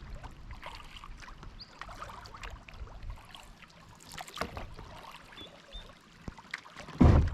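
Paddle strokes with water splashing and trickling as a small paddled boat runs a shallow river swift. Near the end comes one short, loud, deep thump: the hull bumping a rock.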